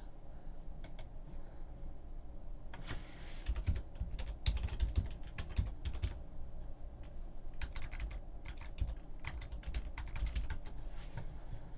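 Typing on a computer keyboard: irregular key clicks and taps, with a few dull low knocks around the middle.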